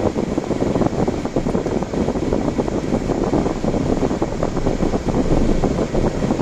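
Steady rushing road and wind noise of a car driving, heard from inside the vehicle, with no distinct events.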